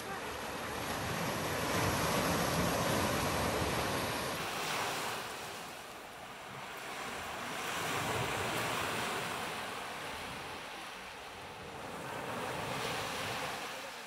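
Small ocean waves breaking and washing up a sandy beach, the surf swelling and fading about every five seconds. Wind rumbles on the microphone during the first few seconds.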